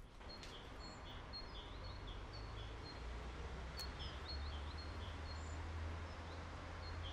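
Urban street ambience: a low steady rumble of city noise that swells slightly partway through, with small birds chirping in short, repeated calls throughout.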